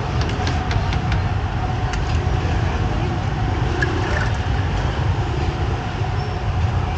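Busy street background noise: a steady low rumble of passing traffic with scattered light clicks and clatter.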